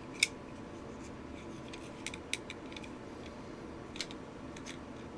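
Scattered small, sharp clicks of metal parts being handled while the disconnector spring is fitted into a Ruger LCP pistol's frame, the loudest just after the start.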